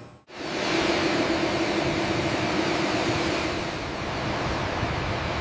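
Twin jet engines of an airliner running steadily as it taxis: an even rushing roar with a steady low hum, cutting in abruptly just after the start.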